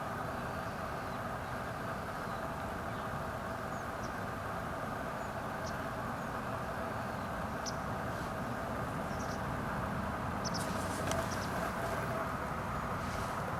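Steady rushing outdoor background noise, with a few brief, high bird chirps scattered through it, a small cluster about two-thirds of the way in.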